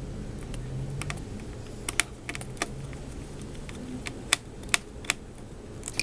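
Irregular sharp plastic clicks and taps, mostly from about two seconds in, from an HP Pavilion dv5 laptop's keyboard being fitted and pressed into place during reassembly.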